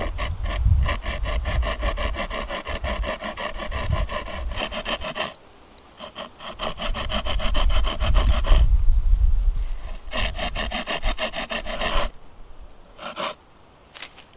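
A small folding hand saw cutting a wooden pole in quick back-and-forth strokes, about five a second, in three runs with short pauses between, then two brief last strokes near the end.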